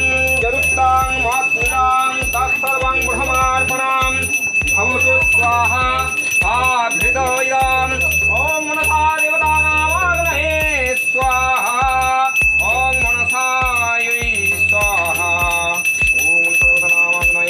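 A hand bell ringing steadily and continuously, as during a puja aarti, over a song with a singing voice and a low steady beat.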